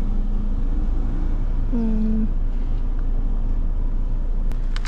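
Steady low rumble of a motor vehicle, with a short vocal sound about two seconds in.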